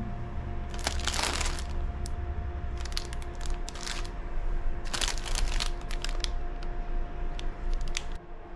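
Crinkling and crackling of plastic wrapping, in three main bursts about two seconds apart with smaller crackles between, over a steady low hum.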